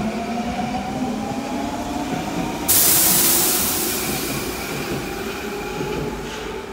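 Nagoya Municipal Subway 5050 series train pulling away and accelerating, its GTO VVVF inverter and traction motors whining in several tones that rise slowly in pitch. About two and a half seconds in, a sudden loud hiss cuts in and fades over a second or two.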